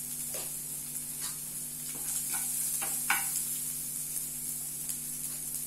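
Chopped onion, curry leaves and dried red chillies sizzling in hot oil in a non-stick kadai, being stirred, with a few short scrapes.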